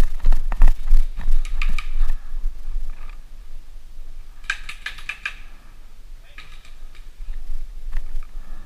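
Paintball markers firing in quick strings of sharp pops. The strongest burst comes in the first two seconds and another about halfway through, over a low rumble.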